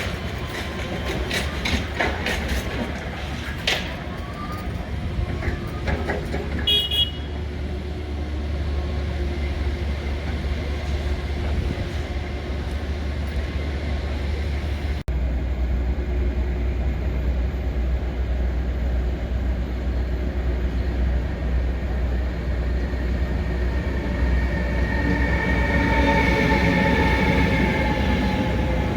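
Train running through the station with a steady low rumble. Sharp wheel clicks come in the first few seconds and a short high toot about seven seconds in. After an abrupt cut, the rumble carries on with a whining tone that sweeps up and down near the end.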